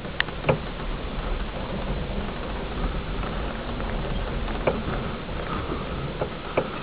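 VW Baja Bug driving over a rough dirt track, heard from inside the car: a steady low rumble of engine and road noise, with sharp knocks and rattles as the car jolts over bumps, a few of them in quick succession near the start and the end.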